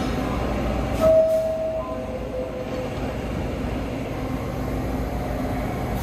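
New York City subway train rumbling in the station. About a second in, a short steady electronic tone sounds and then fainter tones follow.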